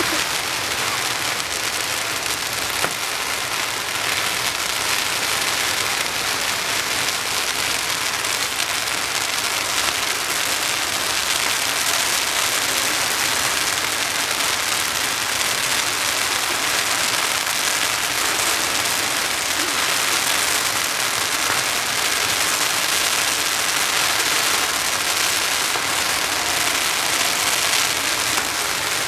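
A long string of firecrackers going off in a dense, continuous crackle, steady throughout.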